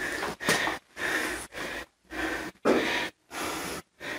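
A person breathing hard and quickly, short noisy breaths about two a second, as during exertion.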